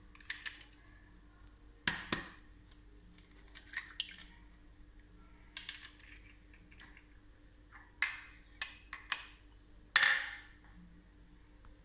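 Scattered knocks and clinks of an egg being cracked on a glass mixing bowl, eggshells set down on a stone countertop, and small glass cups being handled. A few crisp ringing glass clicks come near the end, and the loudest knock falls about ten seconds in, over a faint steady hum.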